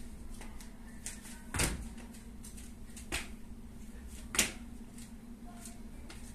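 Feet landing on a wooden floor while hopping through a hopscotch course: three sharp impacts about a second and a half apart, the last the loudest, over a steady low hum.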